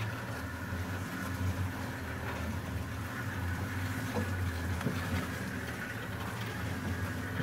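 Engine of an open safari game-drive vehicle running with a steady low drone as it drives along a rough dirt track.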